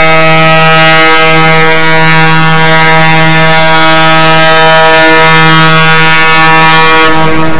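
A ship's horn sounding one long, steady, loud blast, a single low note held for about seven seconds; its brightness drops away near the end.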